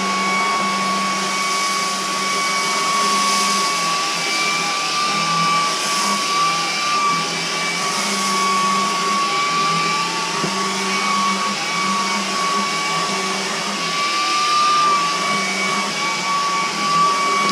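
Vacmaster Orson cordless stick vacuum cleaner running steadily, a high motor whine over the rush of air as it picks up dirt from the floor.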